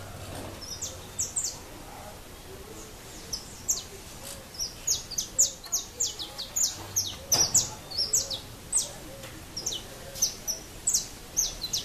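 Saffron finches (canário-da-terra) singing: a chorus of short, sharp, high chirps that is sparse at first and turns dense from about four seconds in. There is a single soft thump about seven seconds in.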